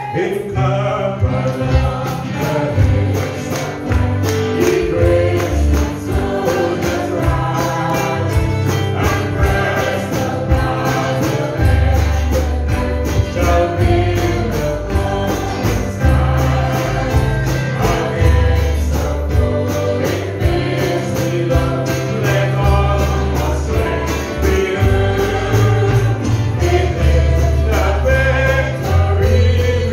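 Live gospel praise song: several voices singing together into microphones over a band with a heavy bass line and a steady beat.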